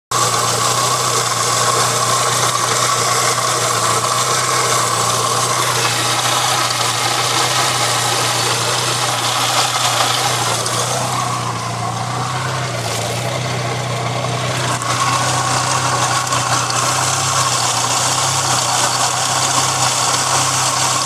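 1997 Saab 900 S engine idling steadily, a little quieter for a few seconds about halfway through.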